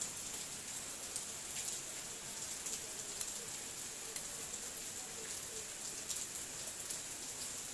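Steady high hiss with scattered faint metallic clicks as the two 10 mm bolts are fitted by hand into a small four-stroke generator engine's connecting-rod cap.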